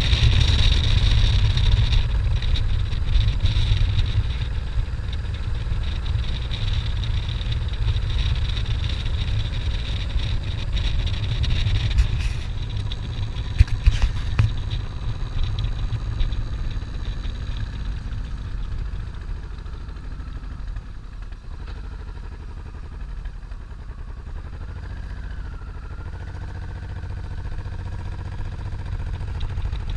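Motorcycle engine running while riding, with road and wind noise. It gets quieter past the middle and picks up a little again near the end.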